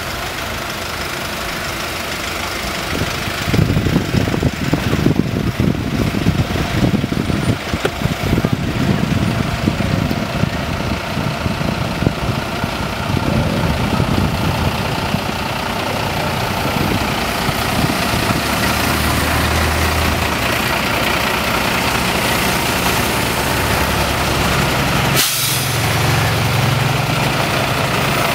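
Diesel engines of a column of fire engines and fire-service vans running, with a heavy, uneven rumble for the first ten seconds or so and a steadier engine note after that. A brief sharp noise comes near the end.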